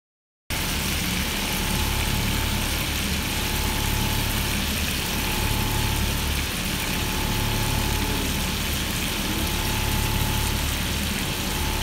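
Battered chicken pieces deep-frying in a pan of hot oil, a steady sizzle, over a steady low hum with a faint thin tone above it. It starts about half a second in.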